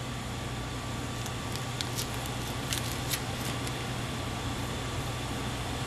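Steady low hum and hiss of an air-conditioning unit running, with a few faint clicks about two to three seconds in.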